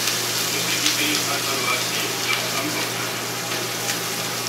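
Food sizzling in hot oil in a skillet as it is stirred with a spatula, a steady hiss with a few light clicks of the spatula against the pan.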